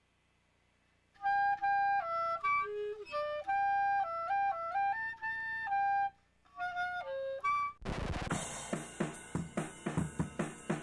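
A clarinet playing a slow solo melody of held notes, starting about a second in, with a brief break before a last short phrase. Near the end it switches abruptly to a drum kit playing quick drum hits under cymbals.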